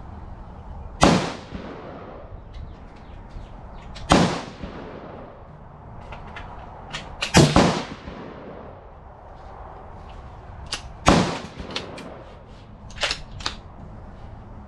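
Rifle shots: loud single reports roughly every three seconds, with two close together a little past the middle, each trailing off in a short echo. Fainter, sharper shots are heard between them, near the end above all.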